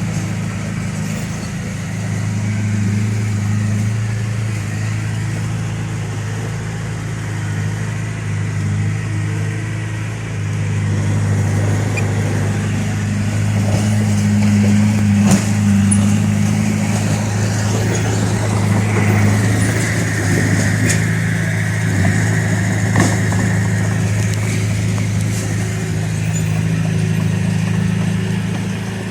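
Crawler bulldozer's diesel engine running steadily under work, with a few sharp clanks; the loudest comes about fifteen seconds in.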